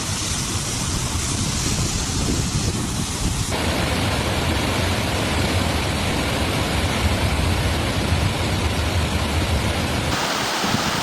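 Storm noise: a steady roar of rushing water with wind buffeting the microphone, changing abruptly about three and a half seconds in and again near the end.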